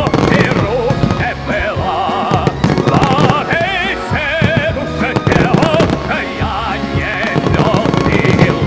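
Fireworks bursting and crackling in a rapid, continuous run of reports, heard over loud music playing a melody with heavy vibrato.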